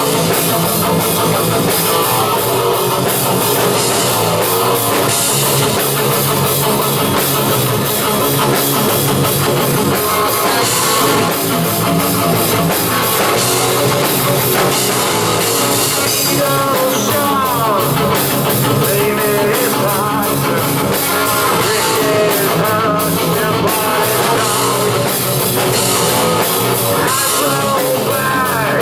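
Live rock band playing loud, with electric guitar and drum kit, in an instrumental stretch without vocals.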